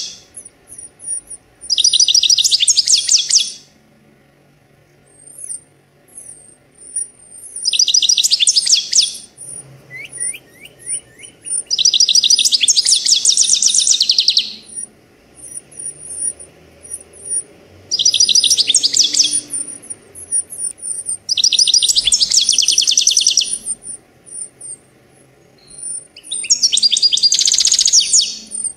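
Goldfinch singing: about six loud bursts of rapid trilled notes, each lasting one and a half to three seconds, with thin high call notes in between.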